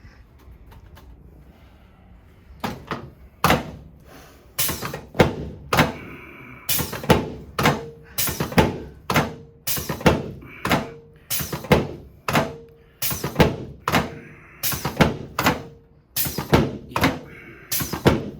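A series of sharp thuds, about one to two a second and some in quick pairs, from a chiropractic treatment table taking repeated adjustment thrusts on a patient lying face down. It is quiet for the first few seconds, and then the thuds run on at an even pace.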